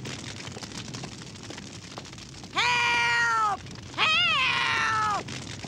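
An elderly woman's voice cries out twice, two long high-pitched calls for help about a second apart, each falling away at the end.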